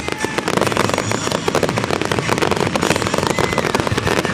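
Fireworks going off in a dense, rapid barrage of crackles and pops, with a faint whistle about three seconds in.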